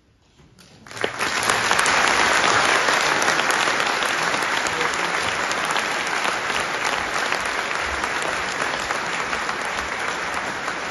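After a moment of near silence, a large audience breaks into loud, sustained applause about a second in.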